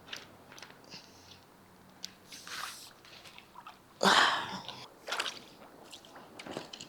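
Scattered rustles and scuffs from handling fishing gear while working a snagged line, with the loudest rustle about four seconds in and another about a second later.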